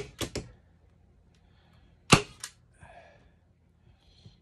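Staple gun driving staples through a beaver pelt into a plywood board: a sharp snap at the start followed quickly by two lighter clicks, then two more snaps about two seconds in.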